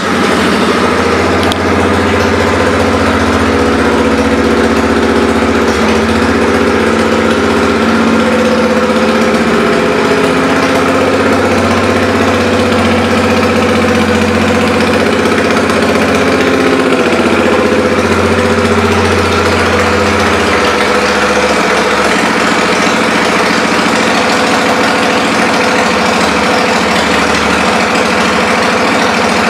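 2006 Suzuki Boulevard C50C's 805 cc V-twin, fitted with Cobra aftermarket pipes and an aftermarket intake, idling steadily just after being started. Its deep low note fades about two-thirds of the way through as the idle settles.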